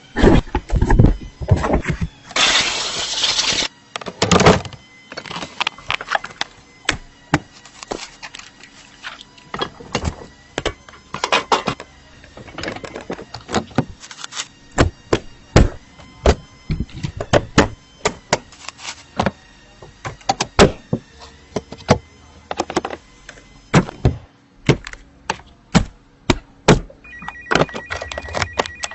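Irregular clicks and knocks of tools and car parts being handled during dashboard work, with a short loud hiss about three seconds in.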